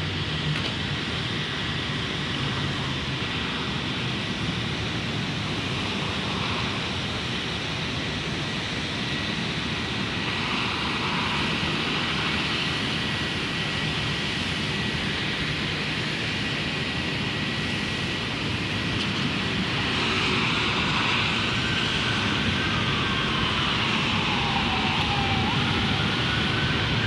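Steady hum of downtown traffic and city noise, with a faint steady high whine through most of it. In the last several seconds a distant siren wails up and down.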